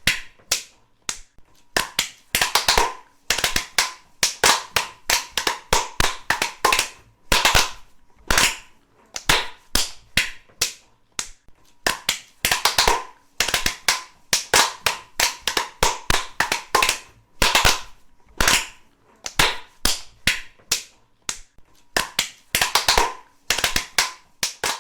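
Sarcastic hand clapping: sharp, uneven claps bunched in short clusters with brief pauses between them.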